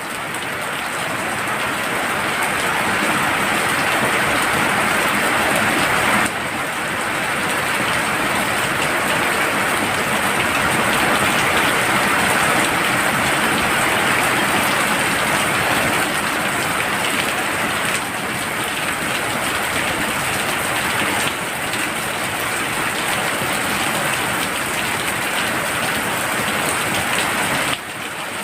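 Heavy rain pouring steadily onto surfaces, a dense even hiss; its loudness drops suddenly a few times.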